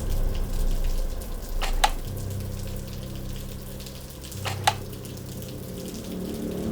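Dark ambient drone: steady low tones under a crackling, sizzling hiss, with a short sharp hit twice, about three seconds apart.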